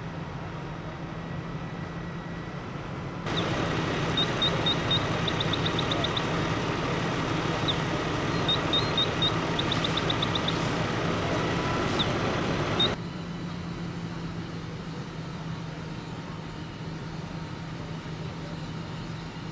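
Fire engine's engine running with a steady low hum. From about three seconds in to about thirteen seconds in, a louder hiss of a fire hose stream spraying water, with quick runs of short high chirps.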